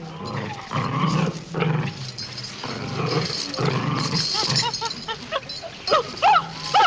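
A dog growling as it tugs at a cloth, pulling against a chimpanzee. From about four and a half seconds in comes a run of short, arching animal calls, louder near the end.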